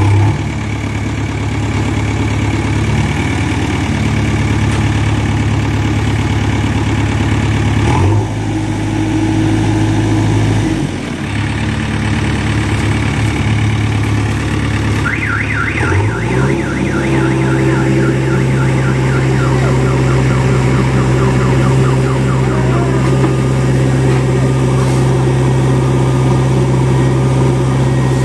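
Heavy diesel engine of a JCB 3DX backhoe loader running under load while it pushes a stuck truck, its engine speed shifting a few times and stepping up to a higher steady pitch about halfway through. For several seconds in the middle, an electronic alarm warbles rapidly up and down over it.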